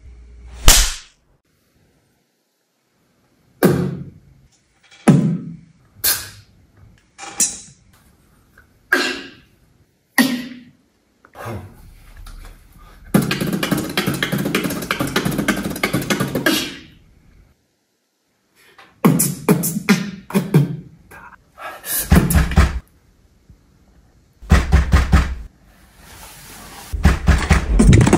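Beatboxing in place of speech: short phrases of mouth-made drum and click sounds, taken in turns with silent gaps between them. A longer run of rapid beats comes about halfway through, and denser bursts follow near the end.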